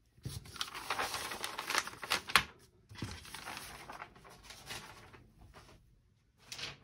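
Large paper sheets being picked up and moved, rustling, with a sharp tap about two and a half seconds in; the handling then fades to faint shuffling, with one more short rustle near the end.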